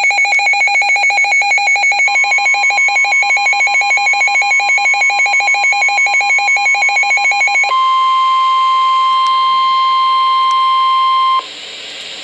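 An electronic weather alert alarm pulsing rapidly in a two-pitch warble. About eight seconds in, it gives way to the steady single-pitch 1050 Hz NOAA Weather Radio warning tone, which cuts off suddenly about a second before the end, leaving a faint hiss.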